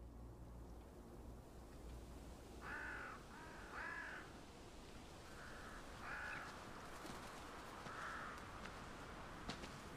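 Crow cawing, about six short caws spaced a second or two apart, over a faint outdoor hush. A single sharp click near the end.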